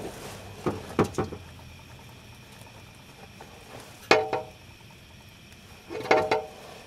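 A few short scrapes and knocks of a hand working muffler cement onto a rusty exhaust pipe flange: a quick cluster near the start, one about four seconds in and two more near the end, over a low steady hiss.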